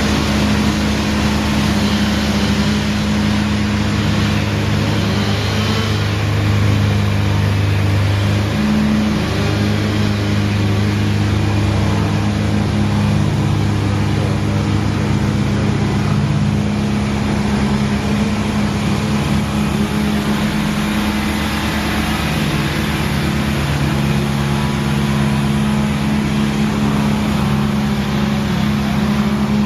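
Engine of heavy demolition machinery running steadily, with a shift in its low hum about nine seconds in.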